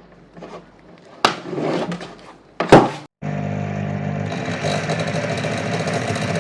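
Two sharp clicks, then about three seconds in the Clatronic KM2718 1000 W stand mixer's motor starts abruptly and runs steadily, loud and noisy. The excessive running noise is the fault the machine is being repaired for.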